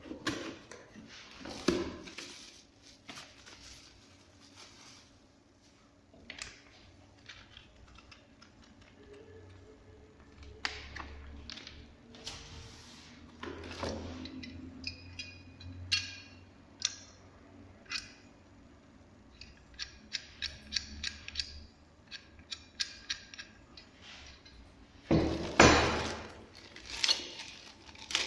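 Handling noises while an angle grinder and its packaging are unpacked: scattered knocks, clicks and rustles, with a quick run of small clicks through the middle and a louder rustling knock near the end. The grinder's motor is not running.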